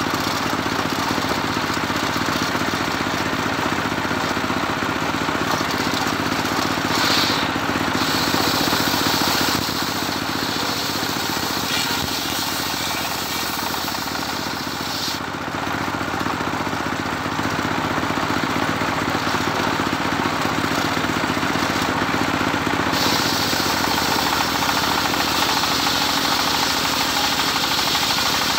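Engine-driven homemade circular saw (serkel) running under load as its blade rips through medang timber: a steady engine drone with the blade's cutting hiss, which swells and eases a few times as the wood is fed.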